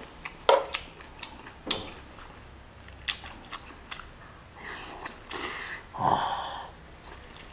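Metal tongs clicking and scraping against a frying pan of grilled beef rib meat, a string of sharp clicks over the first few seconds. Then, about five seconds in, chewing and breathy mouth noises as the meat is eaten.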